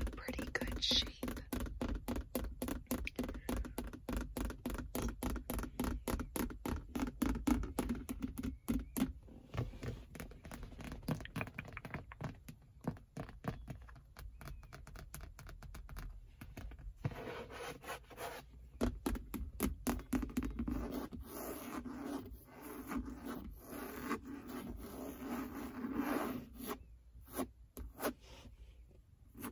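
Long acrylic fingernails tapping and scratching on a Ford Mustang's leather seat upholstery and grained armrest cover. Rapid runs of taps come first, then sparser taps, then longer scratching strokes mixed with taps, thinning out near the end.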